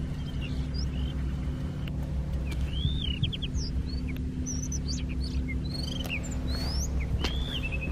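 Honda Cub motorcycle's single-cylinder engine idling steadily through an aftermarket Yoshimura exhaust, with small birds chirping over it in short rising and falling calls.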